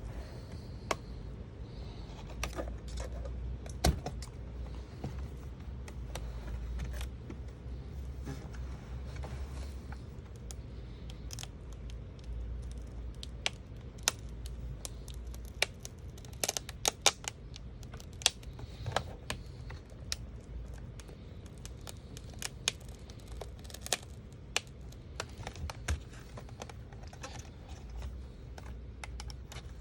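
Irregular sharp clicks, taps and scrapes of plastic and metal as a laptop's screen housing is worked apart by hand with a tool. The clicks come unevenly and cluster most densely past the middle, over a low steady hum.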